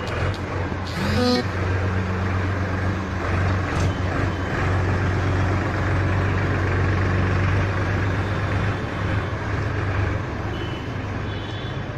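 Tractor's diesel engine running steadily with a low hum, with a brief rising high-pitched sound about a second in.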